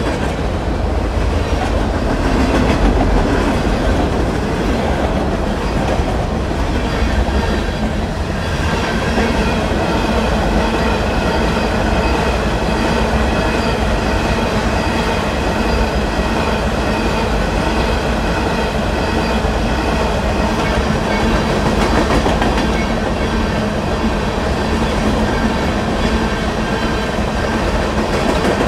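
Freight train's covered hopper cars rolling past close by: a steady rumble of steel wheels on rail with the clickety-clack of the trucks over the rail joints. A faint steady high ringing joins in about eight seconds in.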